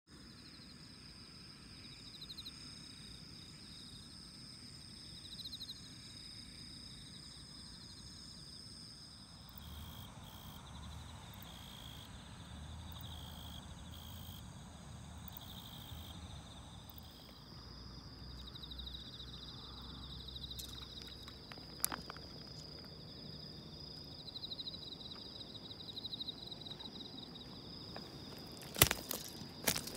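Crickets chirping steadily on an autumn night, a high-pitched drone with pulsing trills that come and go. Near the end a few sharp clicks stand out above the chirping.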